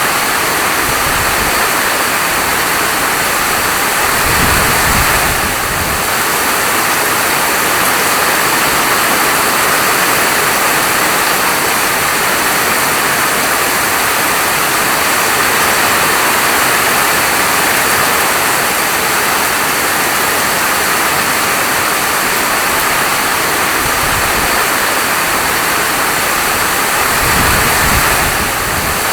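Steady heavy rain falling, a dense even hiss. A brief low rumble comes twice: a few seconds in and again near the end.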